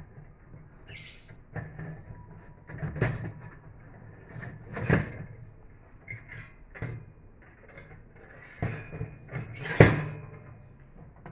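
Irregular knocks, clanks and scrapes of the metal parts of a portable knock-down fire pit being handled and slotted together, with louder knocks about three and five seconds in and the sharpest clank near the end.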